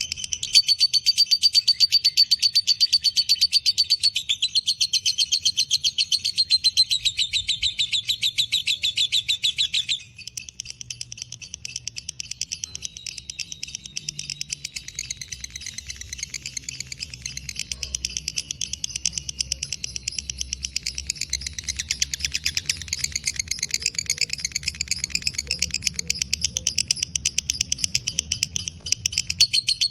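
Lovebird singing its long 'ngekek', an unbroken, rapid chattering trill of shrill chirps. About ten seconds in it suddenly drops in volume but keeps going.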